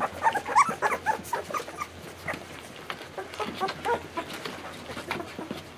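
A litter of 16-day-old Goldendoodle puppies whimpering and squeaking as they crowd in to nurse at feeding time. The squeaks are short, high and rise and fall, come thickly in the first second and then more scattered, with soft clicks among them.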